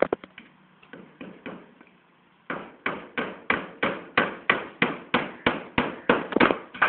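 Hammer nailing into wooden formwork boards: a few scattered taps, then from about two and a half seconds in a steady run of strikes, about three a second.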